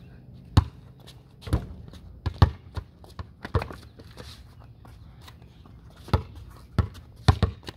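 A basketball bouncing and hitting hard surfaces: a string of about eleven sharp, irregularly spaced thuds. They come in clusters around the second and third seconds and again near the end.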